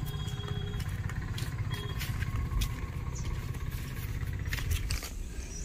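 Wind buffeting a phone's microphone as it is carried along on a walk, a low, choppy rumble with scattered footstep clicks; the rumble falls away about five seconds in.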